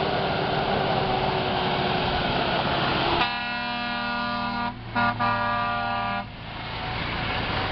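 Logging truck's engine running, then its horn sounds about three seconds in: two blasts of about a second and a half each, with a brief break between them.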